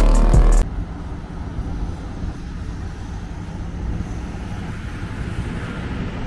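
Loud music cuts off abruptly about half a second in, giving way to a steady low outdoor rumble of distant road traffic.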